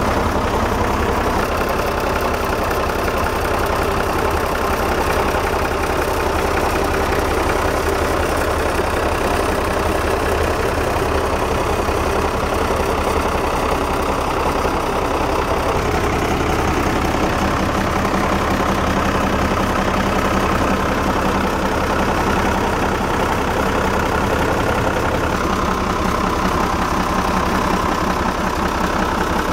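Yamaha FC27's turbocharged inboard engine idling steadily, heard close up from the open engine compartment.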